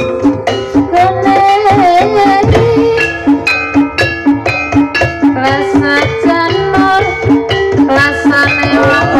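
Javanese gamelan-style accompaniment for an ebeg dance: tuned metal percussion struck in a steady, rhythmic melody over kendang hand-drum strokes, with some singing.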